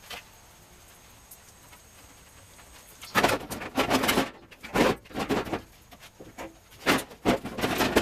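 Irregular bursts of scraping and knocking from handling a car's front fender as it is worked free, starting about three seconds in after a quiet spell.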